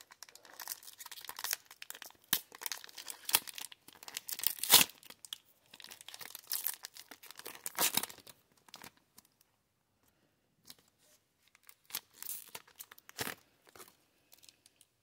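Foil wrapper of a Pokémon Sword & Shield Battle Styles booster pack being torn open by hand and crinkled as the cards are pulled out: a run of sharp rips and crinkles, loudest about five seconds in. It goes quieter after about eight seconds, with a few more crinkles near the end.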